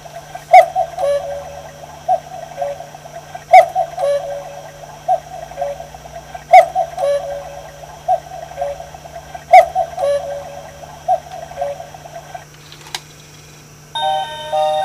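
Black Forest cuckoo clock calling the hour: a sharp stroke about every three seconds, each followed by short two-note cuckoo whistles. The calls stop, there is a click, and about a second before the end the clock's music box starts playing a tune.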